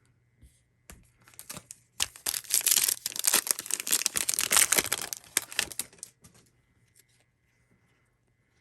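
A crinkly plastic trading-card pack wrapper being torn open and crumpled, a dense crackling for about four seconds, with lighter rustling and handling clicks before and after.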